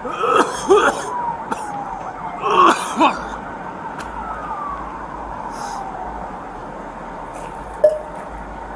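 Siren wailing with slow falling sweeps in pitch. Two loud bursts of a man coughing hard come in the first three seconds, and a short sharp knock sounds near the end.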